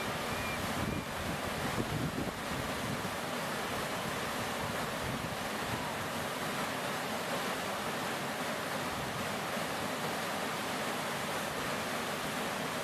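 Rushing river water flowing over shallow riffles, a steady rush of noise.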